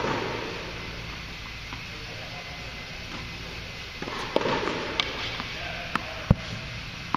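Tennis balls being hit with rackets and bouncing on an indoor hard court: a few sharp, separate pops, one at the start, a quick cluster a little past the middle, then single knocks near the end, over a steady hum of the hall.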